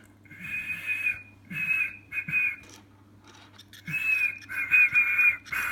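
A man whistling at a whistle-activated key finder in three spells of short high whistles, the second half longest, trying to set it off; the key finder does not answer with a beep.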